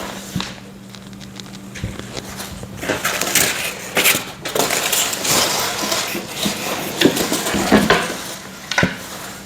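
Parts of a flat-pack metal-frame TV stand being unpacked and laid out: irregular clattering and knocking of hard pieces, busiest in the second half.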